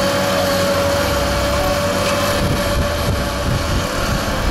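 Fendt tractors' diesel engines running, a steady low drone with a high, level whine held over it.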